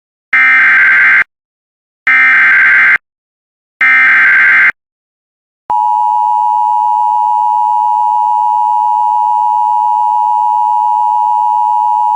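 Emergency Alert System SAME header: three short bursts of rapid digital data tones, about a second apart. They are followed, about five and a half seconds in, by the long, steady two-tone EAS attention signal.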